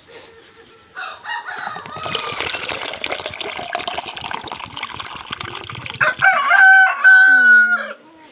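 Coconut water from a freshly opened young coconut splashing into a plastic pitcher. About six seconds in, a rooster crows loudly for about two seconds, drowning it out.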